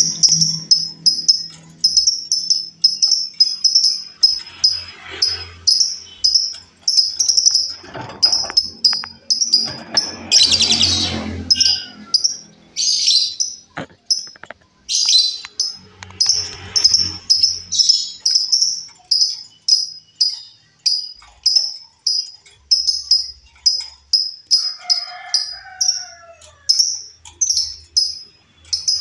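Female lovebird giving shrill, short chirps over and over, about two a second. A brief noisy burst breaks in about ten seconds in.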